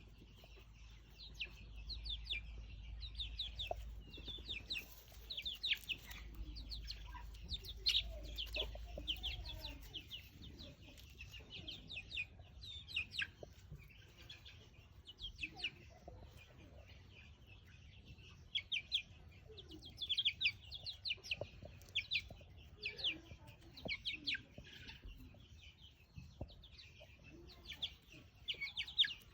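Fighting-breed chicks peeping: many short, high cheeps in rapid runs, each falling in pitch, going on throughout. A low hum sits under the first ten seconds or so.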